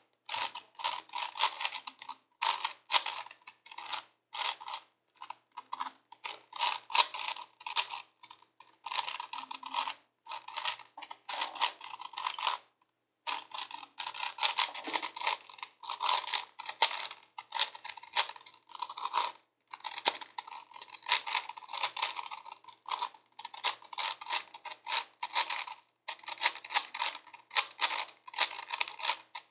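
A 5x5x5 Rubik's cube being turned by hand: rapid runs of plastic clicking and clacking as its layers rotate, in bursts broken by short pauses.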